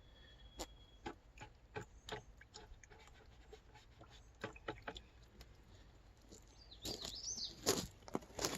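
Quiet spell with scattered small clicks and taps, and a bird chirping briefly about seven seconds in.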